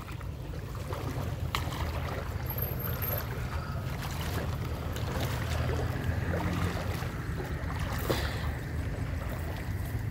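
Wading steps sloshing through shallow floodwater, over a steady low rumble.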